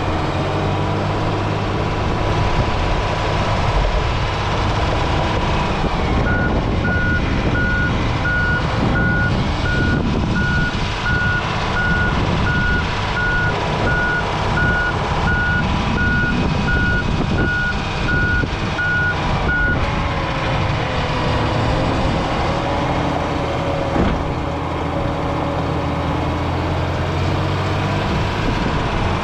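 John Deere 670G motor grader's diesel engine running steadily. Its backup alarm sounds an even string of single-pitch beeps for about thirteen seconds from about six seconds in, as the grader reverses.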